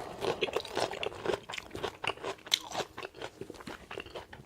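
Close-miked, open-mouthed chewing of a crunchy homemade salad with lettuce, tomatoes, jalapeños and bacon: a quick, irregular run of crunches and mouth clicks.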